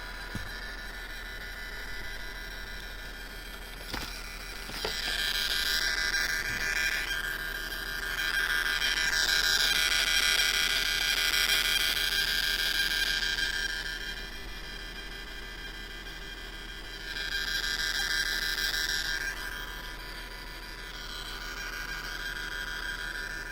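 JBL Flip 5 Bluetooth speaker giving off a high-pitched screeching noise on its own: several steady whining tones over a hiss that swells louder twice, for a long stretch from about five seconds in and again briefly past the middle. The speaker is malfunctioning.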